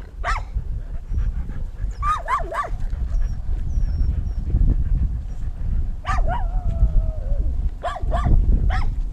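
Siberian huskies yipping and whining in short bursts, with one longer whine sliding down in pitch about six seconds in. Under them runs a heavy low rumble of wind and jostling on a camera strapped to a running dog's harness.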